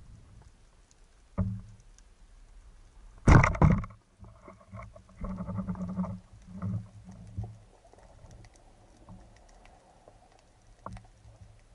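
Band speargun fired underwater about three seconds in: a loud, sharp crack lasting about half a second. It is followed by a few seconds of irregular knocks and rumbling as the speared white seabream struggles on the shaft and line.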